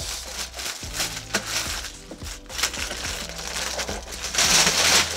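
Clear plastic wrapping crinkling and rustling as a keyboard inside its plastic bag is handled, with a few light knocks; the crinkling gets much louder about four seconds in.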